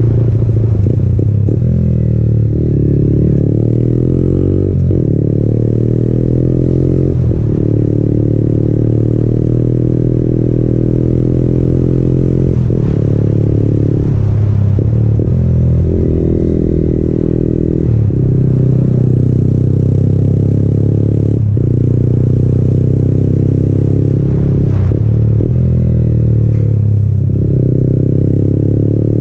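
Yamaha MT-15's single-cylinder engine breathing through an aftermarket Akrapovic exhaust while riding, heard from the rider's seat. The engine note rises and falls repeatedly with throttle changes and gear shifts, with short drops in pitch between pulls.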